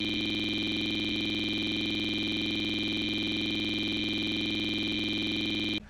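A loud, steady electronic buzz of several held tones with a fast, even pulse, cutting off suddenly near the end.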